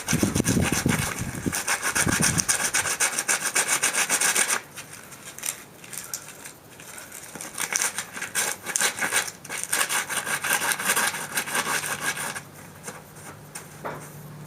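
Sandpaper scraping back and forth over the dried, stiff skin side of a sheep pelt in fast, rapid strokes, in two spells: about the first four and a half seconds, then after a softer stretch again from about halfway until it stops near the end.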